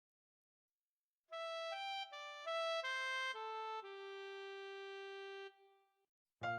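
A short music cue: after a second of silence, a single melodic line of separate notes steps mostly downward and settles on one long held note that fades out. Another piece of music with bass and chords starts just at the end.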